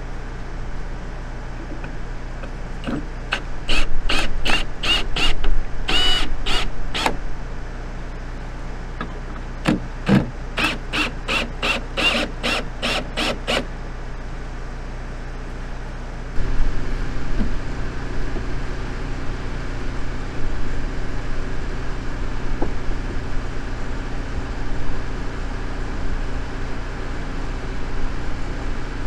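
Two runs of sharp hammer blows, about two to three a second with a ringing tone, tacking a board in place, over the steady hum of a running generator engine. About two-thirds of the way in the engine hum grows louder.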